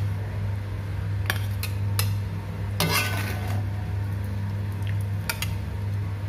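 Metal ladle scraping and clinking against an aluminium wok as cooked fish is scooped out onto a glass plate. The clinks are scattered and busiest about three seconds in, with a sharper clink at the very end. A steady low hum runs underneath.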